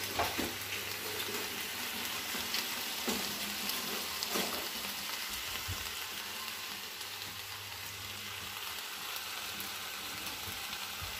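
Sliced mushrooms, peppers and red onion sizzling steadily in oil in a frying pan, sautéing at medium heat. A few brief knocks come in the first half.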